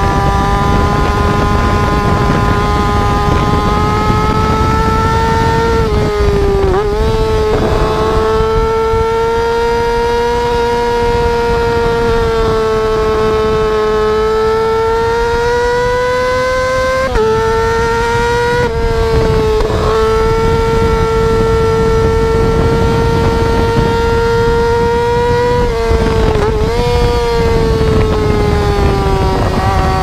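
Yamaha R6 inline-four sportbike engine running at high revs under way, a steady high-pitched note that dips and jumps briefly several times as the rider changes gear, with wind rushing past the microphone.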